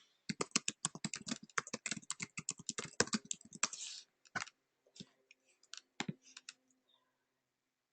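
Typing on a computer keyboard: a fast run of keystrokes for about four seconds, then a few scattered clicks that stop about six and a half seconds in.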